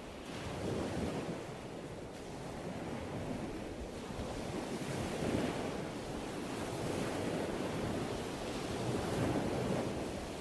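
Ocean surf: waves breaking and washing in a continuous rush that swells and eases every few seconds.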